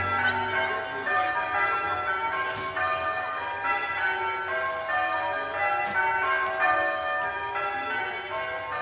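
Bells ringing in quick succession, many strikes overlapping and each tone hanging on briefly as the next begins.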